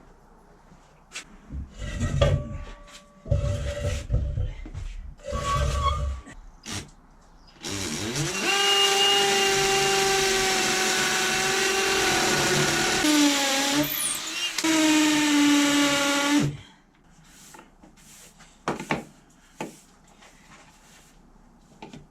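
Electric drill boring new mounting holes: a few short bursts of the motor, then a long run of about nine seconds under load, its pitch dipping briefly near the end before picking up again.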